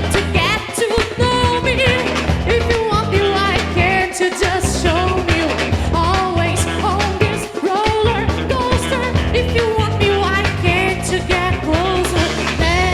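Band music in a rock-batucada style: a singing voice over a steady beat.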